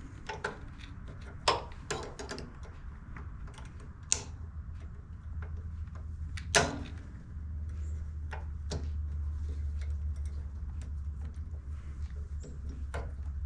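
Small metal parts clicking and clacking as a generator's carburetor parts are handled on a workbench, a few sharp knocks among lighter ticks, over a low steady hum that grows louder about five seconds in.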